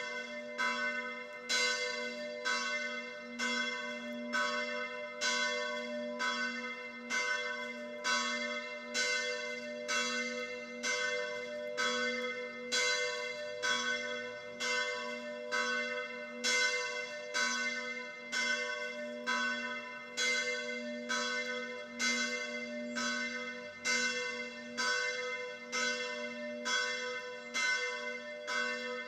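Church bell ringing with an even stroke about every three-quarters of a second, each strike ringing on into the next.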